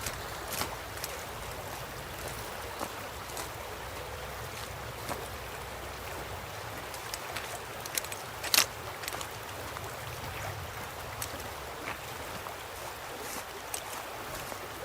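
River water flowing and swirling in a steady rush, with many small splashes and ticks over it; one sharper, louder click past the middle.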